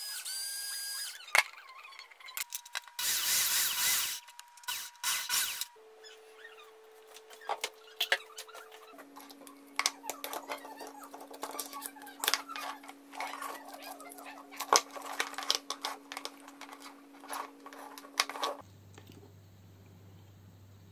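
Cordless drill boring through a plastic electrical junction box, with short bursts of motor whine in the first few seconds. After that come scattered clicks, taps and rustling as the plastic box and mains cable are handled.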